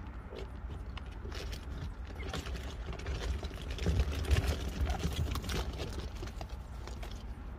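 Meerkats scrabbling through corrugated plastic duct tunnels: a run of light taps and scratches, busiest around four seconds in, over a steady low wind rumble on the microphone.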